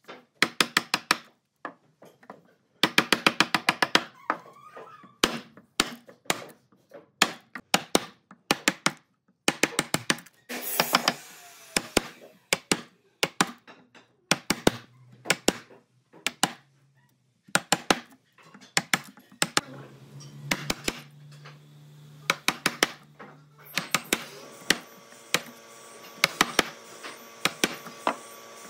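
Woodworking hand work: a long run of sharp taps and knocks on wood, some coming in quick clusters. A low steady hum joins in around the middle, and steadier tones come in near the end.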